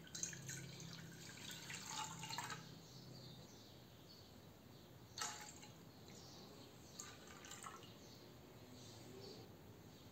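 Faint splashing and dripping of milk being poured into a stainless steel saucepan, mostly in the first couple of seconds, then a sharp click about five seconds in and a few lighter clicks around seven seconds.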